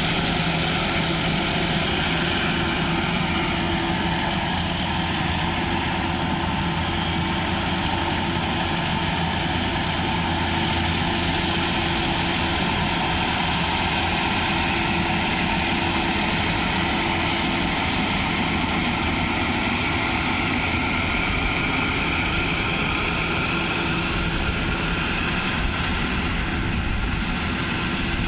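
Engine of a rice harvesting machine running steadily at a constant speed, with a broad mechanical noise over the engine's hum.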